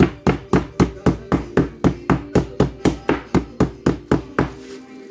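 Meat mallet pounding chicken breast fillets flat through plastic wrap on a wooden cutting board: a steady run of about four blows a second that stops shortly before the end.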